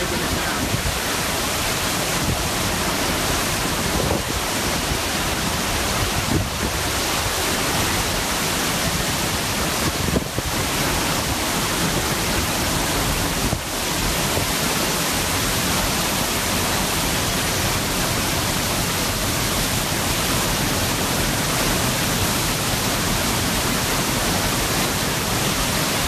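Hurricane-force wind with driving rain: a loud, steady rush of noise that does not let up.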